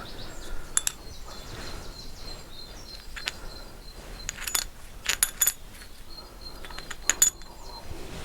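Metal clutch parts clinking and chinking against each other and the bench as the clutch is taken apart, a scatter of sharp metallic clicks with a brief ring, several in quick succession around the middle and two more near the end.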